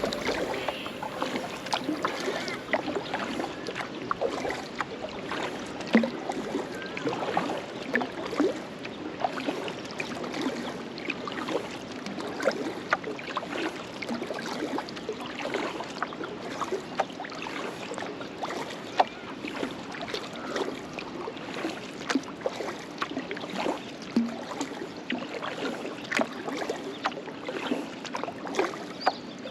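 Water splashing and lapping around a kayak, with many small irregular splashes and drips.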